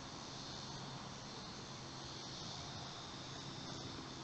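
Quiet, steady outdoor background: an even hiss with a thin, high-pitched steady drone and no distinct event.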